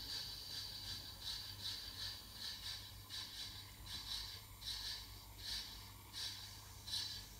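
Model LMS Beyer-Garratt locomotive running on the track: its small electric motor and gears make a steady hum with a rhythmic rasp about one and a half times a second.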